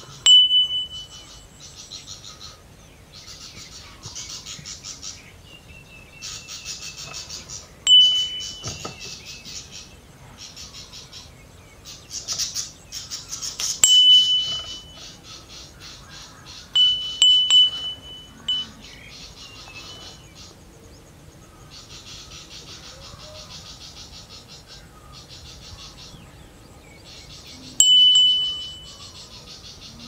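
A high-pitched bell struck about six times at uneven intervals, two strikes close together about halfway, each note ringing briefly and fading. Between strikes, insects buzz in rapid, even pulses.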